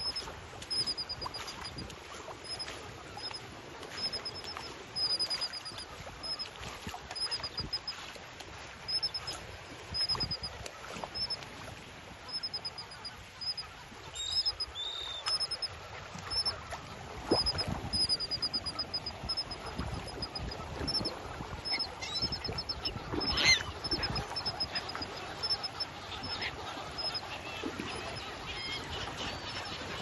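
A flock of gulls and terns calling, with scattered squawks over a steady background of wind and water. The loudest calls come in the second half.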